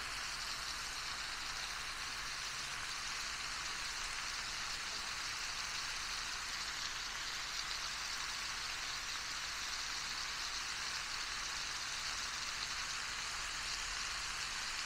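Chopped onion sautéing in rendered meat fat in a hot pan, a steady, even sizzle.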